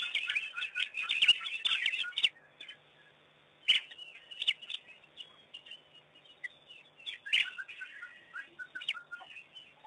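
Rapid, high-pitched chirping and twittering calls. They come thick for the first two seconds, thin out to scattered chirps, and pick up again in a short run about seven seconds in.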